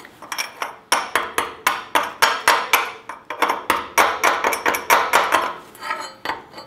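Steel cold chisel scraping and flicking weld spatter BBs off a steel angle-iron bracket welded with dual-shield flux core. Quick metallic clicks and scrapes, about three or four a second, each ringing briefly, with a short pause near the end.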